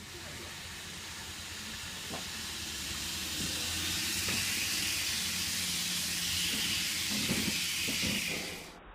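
N gauge model train running along the layout track: a steady hiss of wheels and motor that grows gradually louder, then cuts off suddenly near the end.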